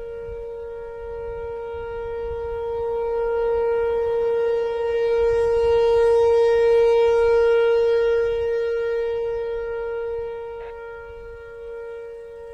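Outdoor tornado warning siren sounding a steady tone that swells to its loudest about six to seven seconds in, then fades again. There is a brief click near the end.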